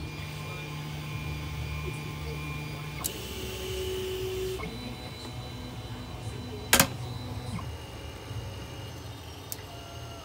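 Zortrax M200 3D printer running, its stepper motors whining at steady pitches that shift as the print head changes moves, over a low fan hum. A single sharp click about seven seconds in is the loudest sound.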